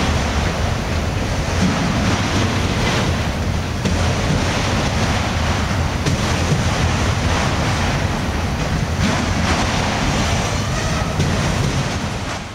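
Freight train's autorack cars rolling past at close range: a steady rumble and rush of steel wheels on rail. It fades out right at the end.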